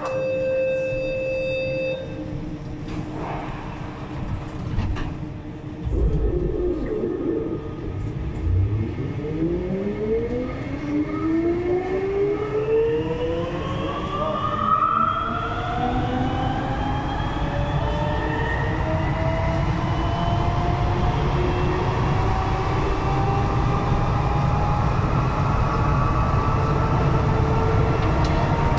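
Siemens VAL 208 rubber-tyred automated metro train pulling away from a station. A steady electronic tone sounds for about two seconds and a thump comes about six seconds in. Then the traction motors' whine rises in several pitches as the train accelerates, over a steady rumble of the tyres.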